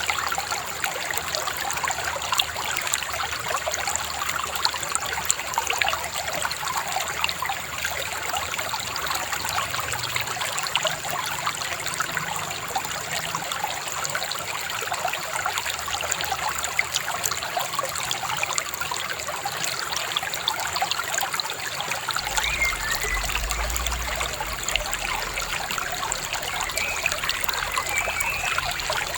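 Shallow river babbling and trickling over stones, a steady, even burble, with a few faint bird chirps near the end.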